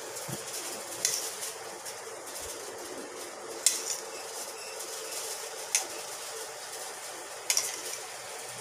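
Four short, sharp clinks of a hand-held ceramic bowl and dish being handled while toppings are sprinkled onto a foil tray of food, over a steady low hiss.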